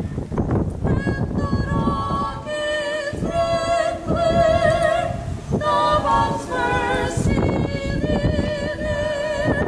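A trio of women singing a cappella, holding long notes with a wavering vibrato.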